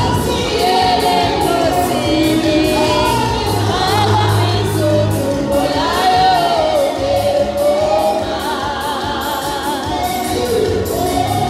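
Choir singing a gospel song, with a lead voice wavering on held notes over a sustained low bass.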